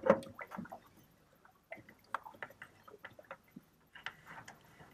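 Faint, irregular small metallic clicks and taps as the steering cable's retaining nut at the outboard's tilt tube is turned off by hand.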